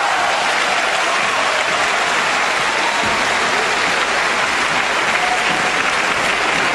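Arena crowd applauding steadily at the end of a table tennis rally.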